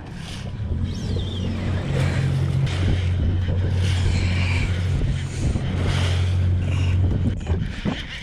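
Outboard motor of a small skiff running steadily with a low hum that comes up about a second in and drops away near the end, with wind buffeting the microphone.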